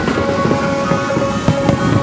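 Music with long held notes, over a rapid, irregular scatter of sharp pops and crackles from exploding fireworks.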